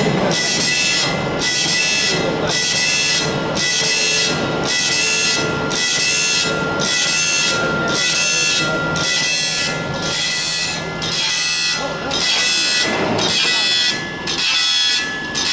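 Saw-tooth grinding machine sharpening a tube-mill flying-saw disc: the grinding wheel rasps across the teeth one after another, in an even rhythm of about one stroke a second, over a steady whine.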